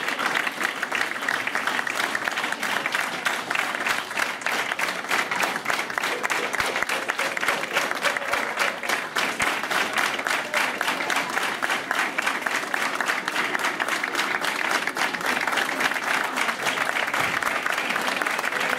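Audience applauding steadily, many hands clapping together without a break.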